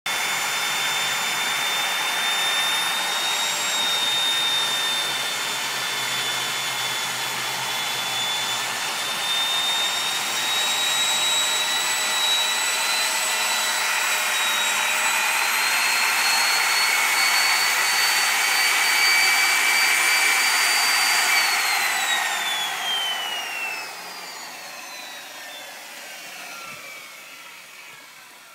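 Stand-mounted electric core drill running steadily while boring a hole in a concrete floor, its high motor whine creeping slightly upward in pitch. About 21 seconds in it is switched off, and the whine falls away as the motor spins down.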